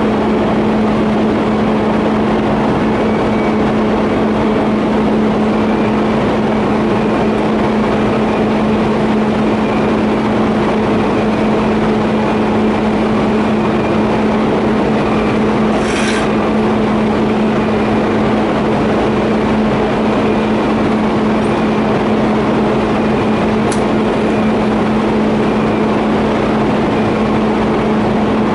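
TIG welding arc on a 50A steel pipe flange-to-elbow joint, a steady buzzing hum over hiss, with a couple of brief clicks.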